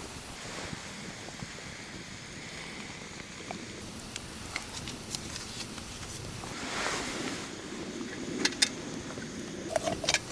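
Steady rushing outdoor noise with scattered sharp clicks and knocks. The noise swells briefly about seven seconds in, and the loudest clicks come near the end.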